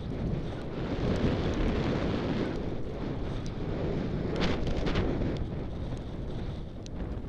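Wind buffeting a helmet camera's microphone on a fast mountain-bike descent, over the rumble of tyres on a dirt trail, with a brief cluster of sharp rattles about four and a half seconds in.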